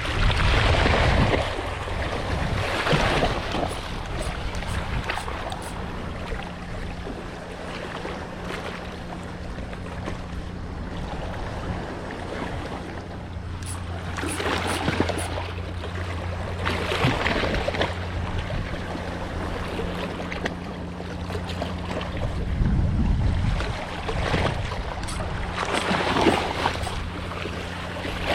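Wind buffeting the microphone and water splashing in rushes every few seconds, over a steady low engine hum, typical of a small boat idling at sea.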